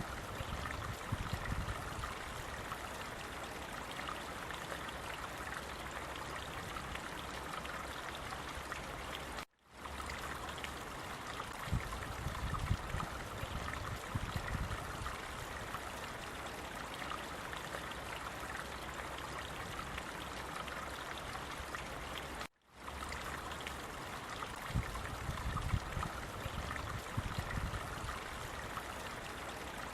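Running water of a stream flowing steadily, an even rushing noise with low rumbles now and then. It cuts out abruptly twice, for a fraction of a second, about ten and twenty-three seconds in.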